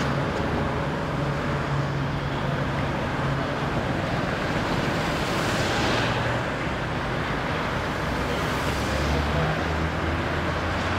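Freeway traffic driving slowly past over a steady low engine rumble, with two vehicles passing close, the first about five seconds in and the second near the end.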